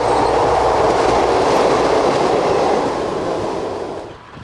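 Railcar running past on the rails with a steady rolling noise, fading away near the end.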